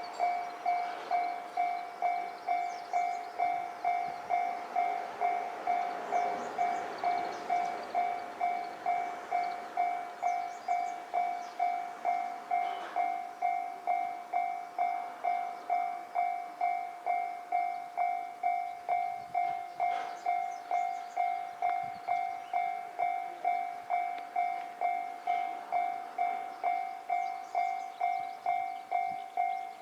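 Japanese level-crossing warning bell ringing, the electronic "kan-kan" tone repeating evenly about twice a second.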